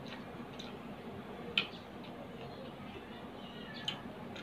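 Close-up eating sounds: wet mouth clicks and smacks while chewing, a few sharp ticks with the loudest about one and a half seconds in, over a steady low hum.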